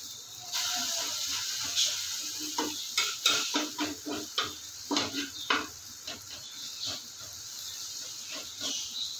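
Omelette sizzling in oil in a non-stick frying pan, with a spatula scraping and tapping against the pan as it presses and turns the omelette. The sizzle starts about half a second in, and the scrapes come thickest in the middle.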